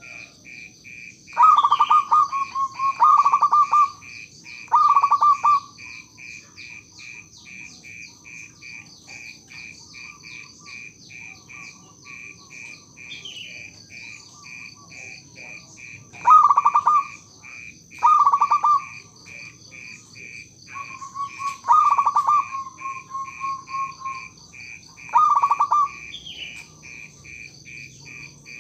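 Zebra dove (perkutut) cooing in short rolling phrases: three close together near the start, then after a long pause four more, one of them trailing into a longer held note. A steady rhythmic chirping and a thin high steady tone go on underneath throughout.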